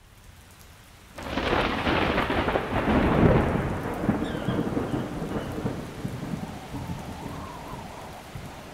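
Steady rain with a thunderclap that breaks in suddenly about a second in, rolls loudest a couple of seconds later, then slowly dies away.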